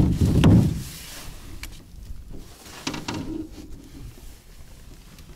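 A heavy boat battery being set down and handled in a boat: a low thud and rumble at the start, then a few light knocks and clicks as it is shifted into place.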